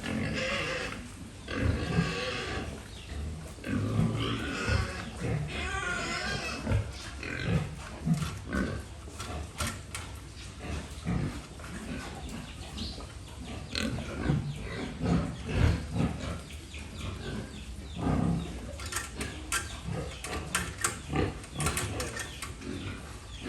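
Pigs grunting and crying out, with loud harsh cries in roughly the first seven seconds, then many short knocks and clicks mixed with lower grunting.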